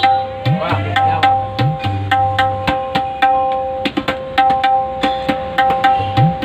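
A new tabla pair played in a quick run of strokes. The treble drum (dayan) rings at a steady pitch, and under it the bass drum (bayan) slides upward in pitch on a few strokes as the palm presses its head.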